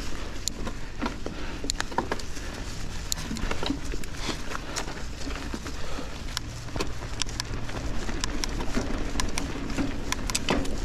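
Giant Trance 29 mountain bike riding fast over dirt singletrack: its Maxxis tyres roll over the dirt with a steady rush, and frequent sharp clicks and rattles come from the chain and frame over bumps. A low steady rumble runs underneath.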